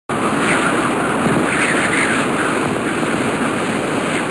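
Strong storm wind roaring steadily over the microphone, swelling in gusts.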